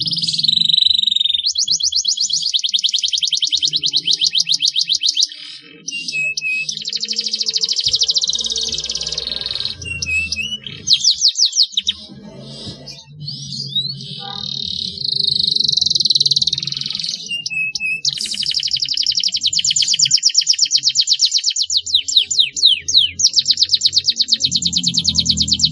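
Canary singing long rolling trills of very fast repeated high notes, broken by short pauses, with a few quick sliding whistles between the rolls.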